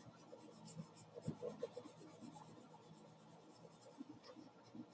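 Faint sound of a marker drawing on a paper sketch pad: short, scattered strokes.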